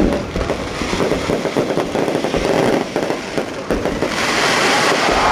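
Fireworks going off in a dense run of rapid crackling bangs. About four seconds in, a steady loud hiss takes over.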